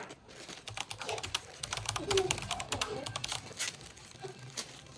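Rapid run of light clicks and crackles from packaging being handled, most of them packed into the first four seconds.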